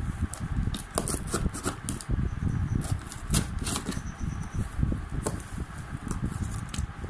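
Rustling and irregular clicks of packaging being handled, over low handling thumps.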